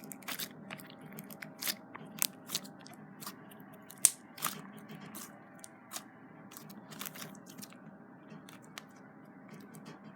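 Slime being kneaded and mixed by hand, giving irregular sticky clicks and pops. The pops come thick and loud in the first half and thin out toward the end.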